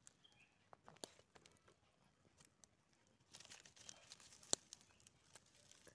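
Faint crackling of a small stick-wood fire: scattered little pops and snaps, thickening into a soft hiss with a cluster of pops near the middle, and one sharper pop about four and a half seconds in.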